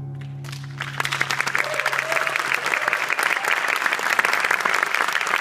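A piano's closing chord dying away, then audience applause breaking out about a second in and carrying on.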